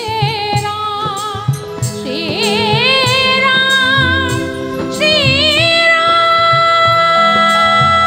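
A woman singing a Hindi devotional Ram song live through a microphone, her voice wavering through ornamented runs with vibrato, then holding one long note from about five seconds in. A live band keeps a steady beat beneath her.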